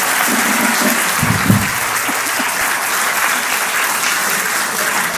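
Audience applauding steadily, with a brief low sound about a second and a half in.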